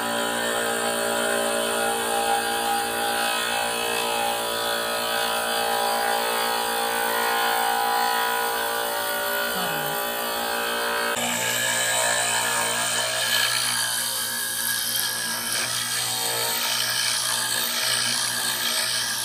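Glastar glass grinder running with a diamond drill bit attachment, a piece of glass pressed hard onto the spinning bit to grind a hole or divot into it. A steady motor hum with grinding hiss over it, which turns harsher and hissier about eleven seconds in.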